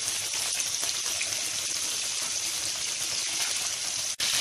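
Köfte patties sizzling steadily in a frying pan in the fat rendered from their own mince. The sound cuts out for an instant near the end.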